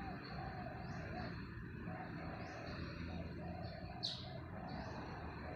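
Squirrel calling with short, high chirps that repeat about once a second, with one sharper, louder chirp about four seconds in.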